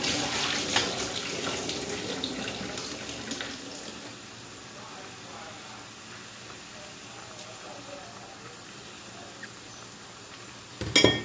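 Seafood broth boiling in a wok, bubbling loudly at first and settling after a few seconds into a steady low simmer. A brief loud clatter sounds near the end.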